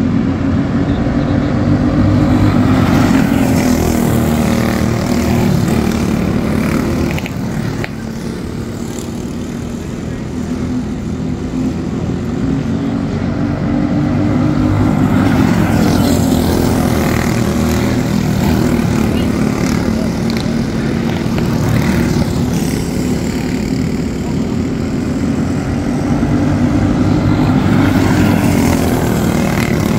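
Several racing go-karts running on a dirt oval, their small engines droning in a pack, the pitch rising and falling as they accelerate out of the turns and lift into them. The sound eases off around eight seconds in, then builds again as the karts come back around.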